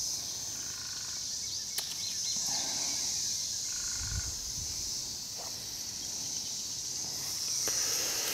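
Steady high-pitched insect chorus chirring without a break, with a single sharp click about two seconds in.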